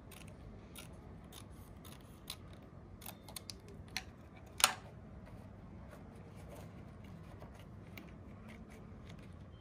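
Scissors snipping through fly-screen mesh: a string of short, sharp snips, one much louder than the rest about halfway through.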